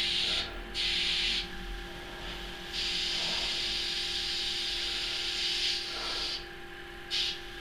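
Compressed air hissing out of a Bambi compressor's reserve tank in bursts: two short blasts, a long one of about three and a half seconds, then a brief puff near the end. The tank is being bled down so its pressure drops far enough for the compressor to cut in.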